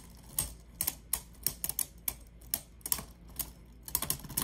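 World Spriggan and Brave Valkyrie Beyblade tops spinning in a plastic stadium and knocking into each other. Their clashes make a fast, irregular run of sharp clicks that come thicker near the end.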